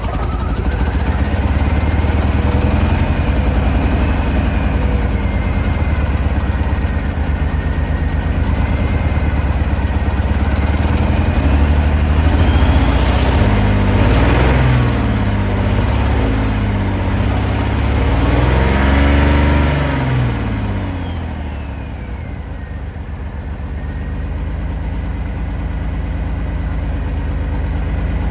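1987 Ford F-150 engine running after sitting 15 years. It is revved up and back down twice, then settles to a steady idle, running on its own with a new ignition switch fitted.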